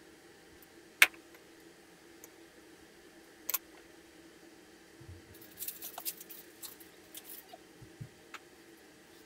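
Kitchen utensils knocking and scraping against a metal saucepan: a sharp click about a second in, a double click a little later, then a run of light clinks and scrapes in the second half. A steady low hum lies underneath.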